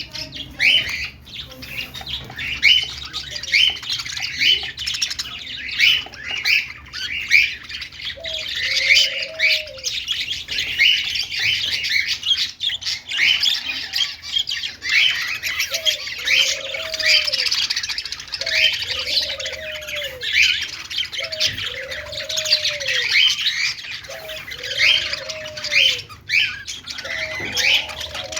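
A group of budgies (budgerigars) chattering: quick overlapping chirps and squawks with no break. From about eight seconds in, a lower note that rises and falls repeats every second or two underneath.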